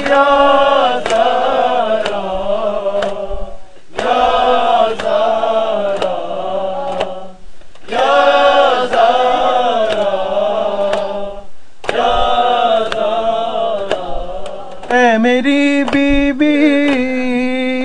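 Urdu noha chanted by a group of male voices: sung refrain phrases about four seconds long with short breaks between them. Under the singing runs a steady beat of matam chest-beating, about two strikes a second.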